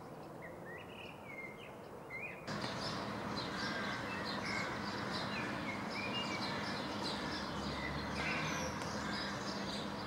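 Small songbirds chirping over steady outdoor background noise, which gets louder about two and a half seconds in, where many more thin, high chirps join.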